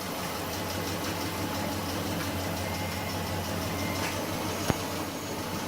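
Car engine idling steadily just after starting, with one spark plug left out so a cylinder is not firing. One sharp click near the end.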